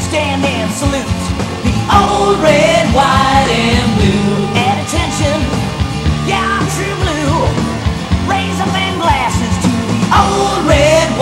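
Hard rock band playing, with drums and electric guitars and a high, wavering lead line over them.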